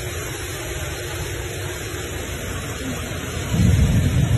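Steady rushing noise of a street flash flood and heavy rain, with a louder low rumble coming in about three and a half seconds in.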